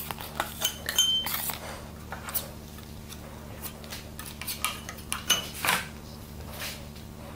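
Metal putty knife scraping and tapping as it spreads and presses Bondo body filler into a defect in a wooden board: a run of short scrapes and light clinks, busiest in the first second and a half, with a brief ring from the blade about a second in.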